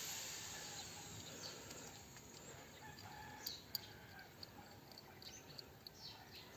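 Faint background hiss with distant bird calls, and two light clicks about three and a half seconds in.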